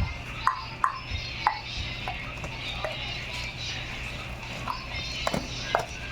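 Scattered light clinks and knocks, some with a short metallic ring, at irregular intervals over a steady low hum: metal parts and tools being handled during mag-wheel work.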